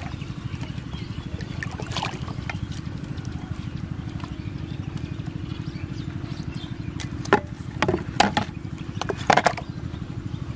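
A motor engine runs steadily in the background with a fast, even chug. A few sharp splashes and knocks come at about two seconds and again between seven and nine and a half seconds in, from a caught fish and a red plastic basin sitting in shallow water.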